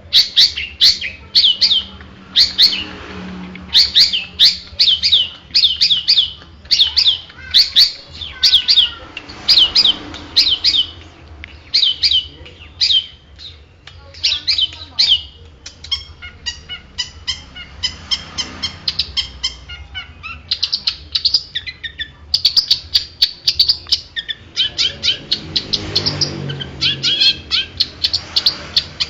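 Long-tailed shrike (cendet) singing: loud, rapid runs of sharp, chattering high notes, several a second, broken by short pauses.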